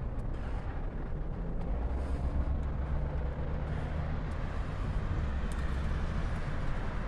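Steady low rumble of a motor vehicle's engine, with a deeper hum growing stronger about two seconds in.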